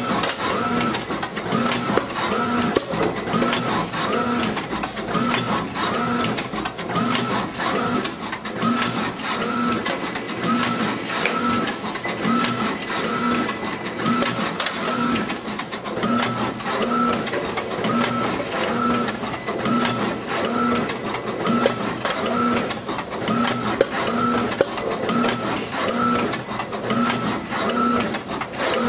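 Suzumo CSS-MSA nigiri rice-ball sushi machine running in continuous production, its forming mechanism and chain conveyors working in a steady repeating cycle about once a second.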